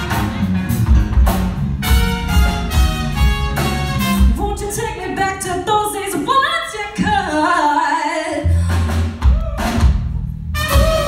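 Live pop-jazz band playing: drum kit, bass and a horn section under a lead singer, with a melodic vocal line rising and falling in the middle. Most of the band stops briefly near the end.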